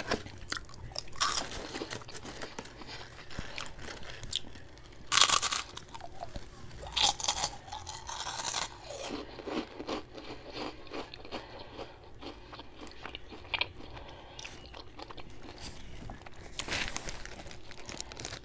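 A person chewing a hero sandwich on a long roll with the mouth close to the microphone, with several crunchy bites into the bread. The loudest bite comes about five seconds in, and another comes near the end.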